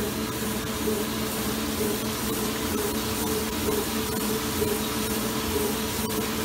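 Rottler H80 CNC cylinder hone running, stroking its honing head through a cylinder bore under a torque plate while honing oil streams over the tool: a steady machine hum with a hiss.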